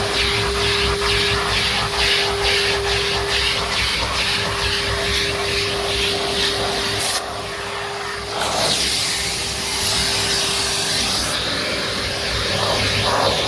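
Numatic NTD570 vacuum cleaner running with a steady motor whine and a rushing hiss of suction, with scraping and rubbing as the nozzle works over the stairs. About seven seconds in the high hiss briefly drops away, and the whine fades soon after.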